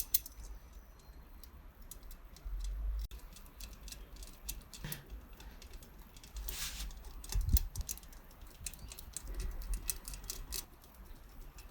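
Light metal clicks and ticks of wire spokes being threaded through a moped wheel's hub and rim during wheel lacing, with a short scrape about two thirds of the way through and a dull knock just after.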